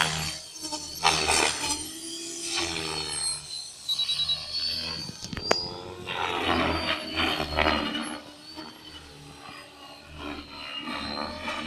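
Align T-Rex 550L electric RC helicopter flying aerobatics: its rotor blades and motor whoosh in loud surges that rise and fall in pitch as the blade pitch changes. A single sharp click sounds about five and a half seconds in.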